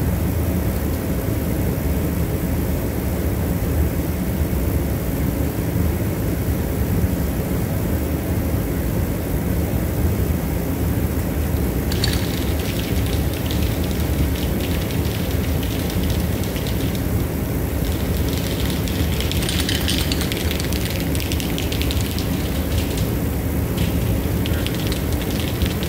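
A steady low mechanical drone, like a fan or machine running, throughout. From about halfway in, rustling and crinkling as hands work among the engine-bay wiring.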